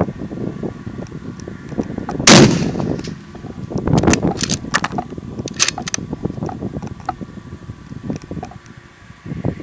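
A single rifle shot from a Savage Model 11 bolt-action 7mm-08 about two seconds in, with a short decaying echo. A few fainter sharp clicks follow a couple of seconds later.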